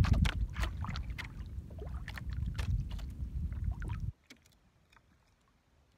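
Wind buffeting the microphone and water slapping against a small outrigger boat's hull, dotted with scattered sharp clicks as the fishing line is hauled in by hand. About four seconds in it cuts off suddenly to near silence with only faint ticks.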